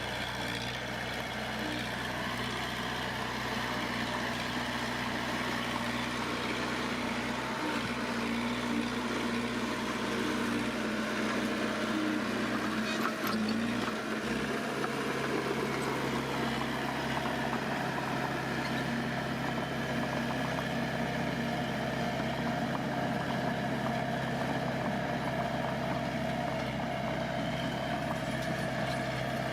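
Heavy diesel engine of earthmoving machinery running steadily, its low note changing slightly about halfway through.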